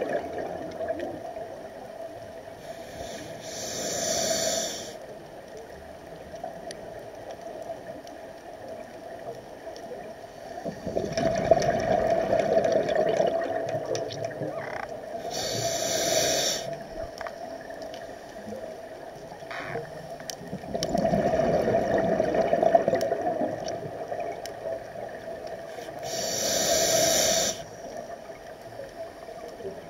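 Scuba diver breathing through a regulator underwater: a short hissing inhale three times, and twice a longer, louder rush of exhaled bubbles, in a slow breathing rhythm.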